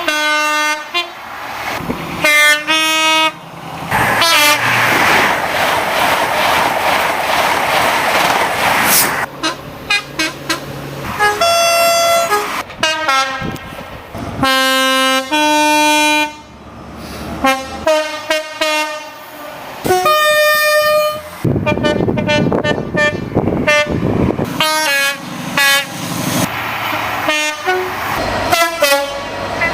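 A string of short clips of British diesel trains sounding their two-tone air horns, many blasts alternating high and low notes, with abrupt cuts between clips. Twice the rush of a passing train fills the gap between horn calls.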